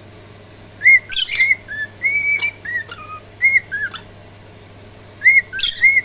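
Cockatiel whistling a tune in short arched notes, with a pause of about a second before it starts whistling again near the end.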